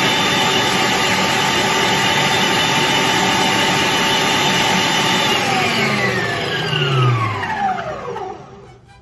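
Electric stand mixer running at high speed, its wire whisk beating egg whites. About five seconds in it is switched off, and the motor whine falls steadily in pitch as it spins down to a stop.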